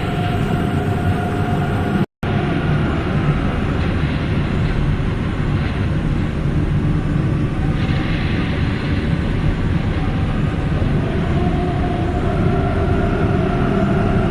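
Steady, loud rumbling drone with a few faint held tones above it, a dark ambience sound effect; it drops out for a split second about two seconds in, then carries on unchanged.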